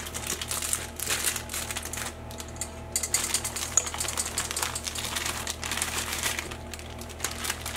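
Thin plastic bag of dry brownie mix crinkling and crackling as it is handled and tipped, the powder pouring out into a stainless steel mixing bowl.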